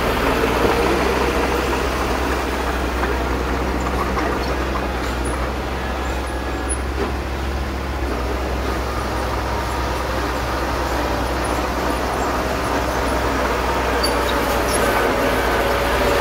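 Small crawler bulldozer's diesel engine running steadily under load while pushing soil. It grows a little louder near the end as the machine comes back close.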